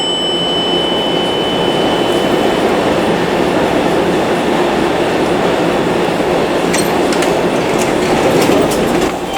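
Subway train running: a steady, loud noise of wheels on rails, with a few sharp clicks near the end.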